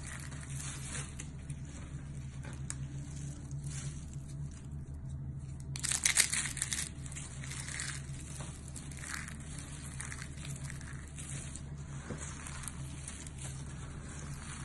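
Hands squeezing and crumbling a heap of dry shaved soap flakes, a continuous crisp crackling and crunching, loudest in a burst about halfway through. A faint steady low hum runs underneath.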